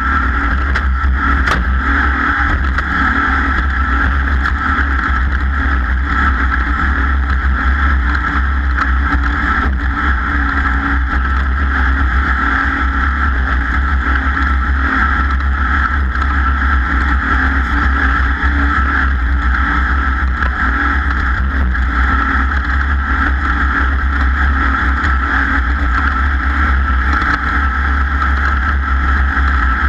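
Racing powerboat engine running steadily at speed, loud and unbroken, with no change in pitch.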